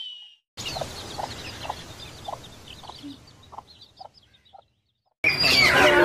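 Bird calls in quick succession. First a buzzard's short descending mewing whistle, then a run of low clucking notes about two a second with faint chirps above them. Near the end, loud chattering of lovebirds.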